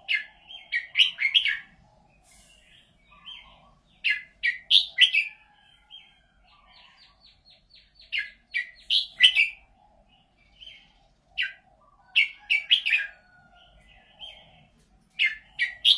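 Red-whiskered bulbul singing: short bursts of quick whistled phrases repeated every few seconds, with a rapid even trill of notes about six seconds in.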